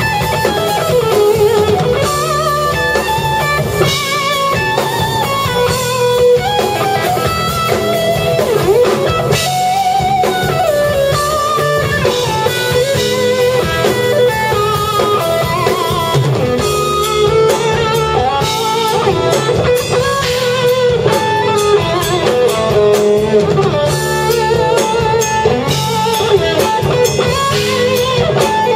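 Live instrumental rock played by an electric guitar, electric bass and drum kit, the guitar carrying a melodic lead line with bends and vibrato over the bass and drums.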